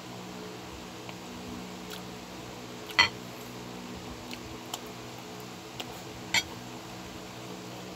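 Metal fork and spoon clinking against a bowl of food a few times, the sharpest clink about three seconds in and another about six seconds in, over a steady low hum.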